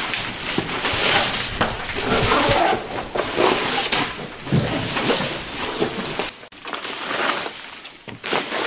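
Footsteps crunching over debris and wooden boards, with rustling of clothing and leafy plants brushing past, as a person walks through a derelict barn. The crunches and knocks come irregularly and ease off somewhat near the end.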